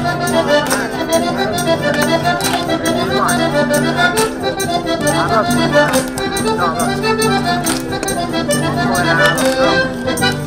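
Accordion playing a lively traditional Italian folk-dance tune over held chords, with regular sharp percussive strikes keeping the beat.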